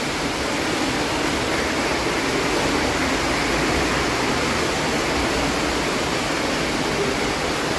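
Rain falling on a sheet-metal roof: a steady, even hiss of drops striking the metal.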